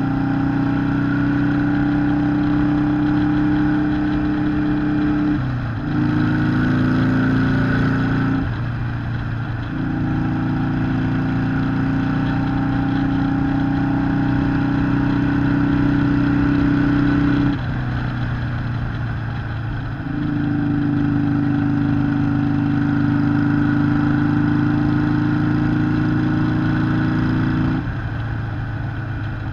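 Harley-Davidson Sportster 883 SuperLow's air-cooled V-twin running at a steady pitch. The engine note drops away briefly four times, about five, nine, eighteen and twenty-eight seconds in, and rises back to steady running, as when the throttle is eased and reopened.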